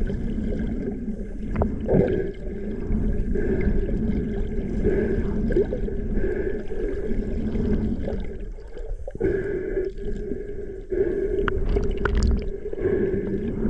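Underwater sound through a GoPro housing: a steady droning hum with water gurgling, a brief dip about nine seconds in and a few sharp clicks near the end.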